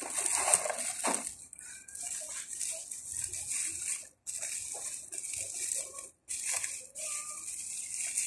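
Thin clear plastic bag crinkling and rustling in the hands as a small model airplane is worked out of it, over a steady hiss. The sound drops out briefly twice.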